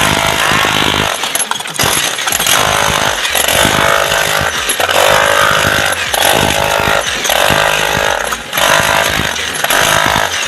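Handheld electric demolition hammer chipping into a concrete floor, hammering loudly with a motor whine, with a couple of brief pauses as the bit is repositioned.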